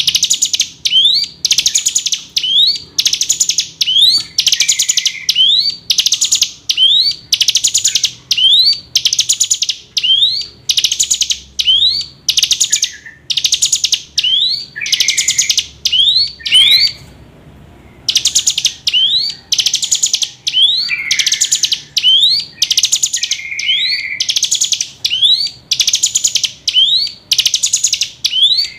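Hill prinia (ciblek gunung) calling over and over: loud, high, chattering notes about twice a second, each with a short rising whistle, broken once by a brief pause a little past halfway.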